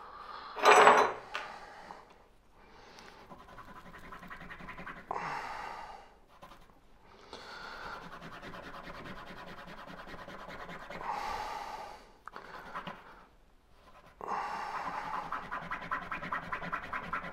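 Folding-knife pivot washers being wiped clean by hand, a rubbing, scratching sound in several stretches of a few seconds each, with one short louder burst about a second in.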